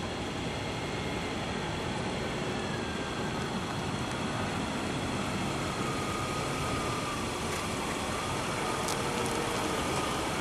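A car's engine running as the car drives slowly up and comes to a stop, over a steady hiss. The sound grows slightly louder as it approaches, with a faint whine that falls in pitch over the first few seconds.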